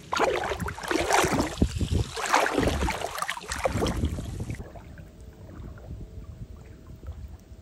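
Legs wading through shallow seawater, the water sloshing and splashing around them in irregular surges with each stride. About four and a half seconds in, this gives way to a much quieter stretch.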